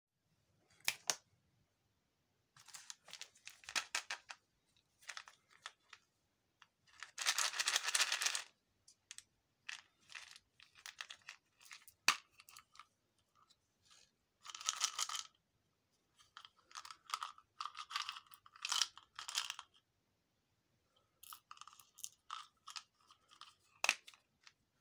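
Plastic candy wrapper crinkling and being torn open in short handling bursts, the longest and loudest about seven seconds in, with a few sharp clicks from a small capped candy tube being opened and handled.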